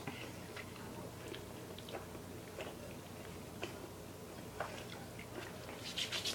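A person chewing food, with scattered small clicks and a short cluster of sharper clicks near the end.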